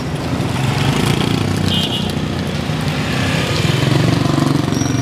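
Motorbike engine running close by, a steady low rumble that grows louder about four seconds in.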